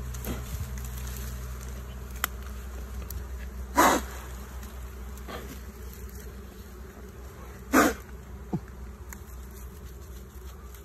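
Bees buzzing around their open comb nest as it is pulled from tall grass, with a steady low hum that slowly fades. Two short, loud rustles of dry grass stems stand out, about four and eight seconds in.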